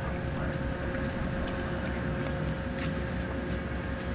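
A steady low rumble carrying a constant mid-pitched hum, as of an engine or machine running.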